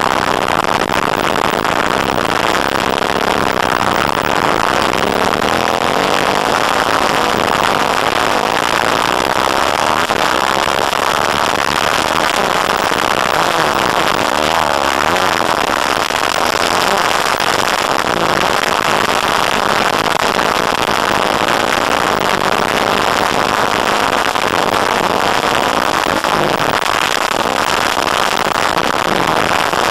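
Dirt bike engine running hard and revving up and down, heard from a camera on the bike, under heavy rushing noise.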